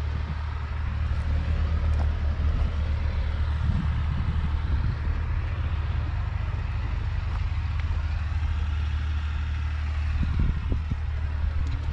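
1991 John Deere 3050's 5.9-litre six-cylinder diesel engine running steadily with a deep hum, with a few brief knocks near the end.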